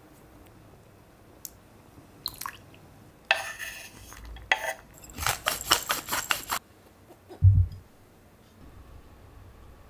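Kitchen cooking sounds: a few light clinks, then a wooden spoon scraping sliced zucchini off a wooden cutting board into a pot in a run of quick scrapes. A single low thump comes near the end.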